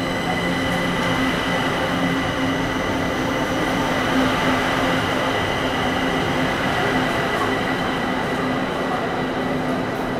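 Kaohsiung MRT Siemens metro train pulling out of an underground station: a steady rumble of wheels on rail with several high, steady whining tones over it. The whine fades near the end as the train draws away into the tunnel.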